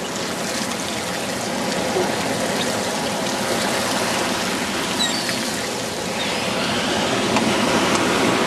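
Shallow surf washing over wet sand at the water's edge: a steady, even rushing hiss.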